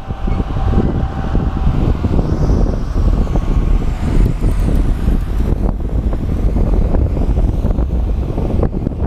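Loud wind buffeting on the microphone of a camera mounted outside a moving pickup truck, mostly a low rumble with uneven gusts and knocks.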